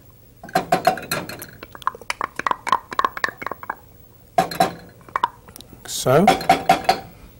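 A metal spoon repeatedly clinking and scraping against a metal pot as ghee is spooned into it, in two quick runs of sharp clinks with a faint ring.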